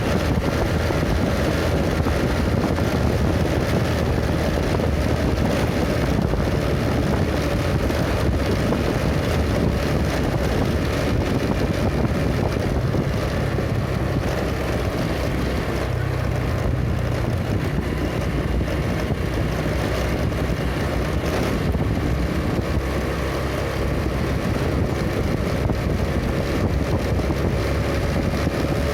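A vehicle engine running steadily at cruising speed, with road rumble and wind buffeting the microphone.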